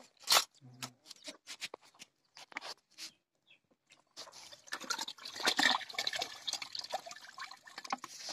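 Water splashing and dripping as raw goat intestines are washed and squeezed by hand in a bucket of water and lifted out. Scattered short drips and splashes at first, then a busier stretch of splashing from about halfway through.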